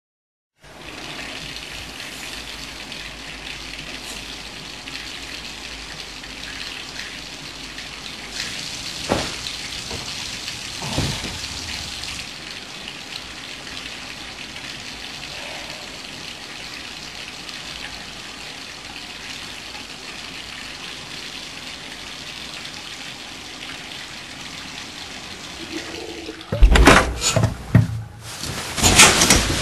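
Steady hiss of running water, with two short louder swells partway through. Near the end come several loud sharp knocks and clatter.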